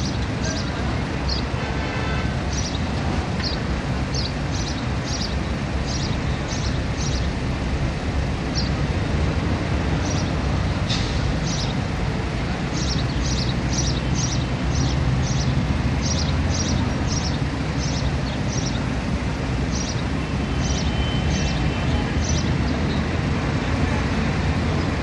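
Steady low outdoor rumble, with small birds chirping in short high notes that at times come several a second.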